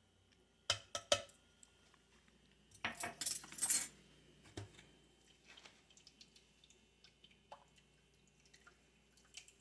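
Kitchen utensils clinking against dishes and containers: a few sharp clicks about a second in, then a longer clatter around three seconds in and a single knock shortly after.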